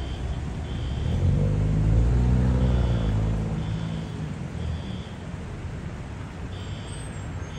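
Vehicle engine rumble that swells about a second in, is loudest around two seconds, and then eases back to a steady low drone. Faint short high-pitched beeps recur now and then over it.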